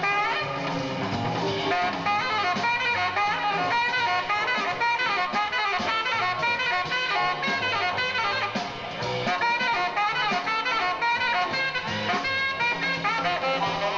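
Live jazz in a swing groove: a saxophone playing a fast, winding improvised solo line over piano, upright bass and drums.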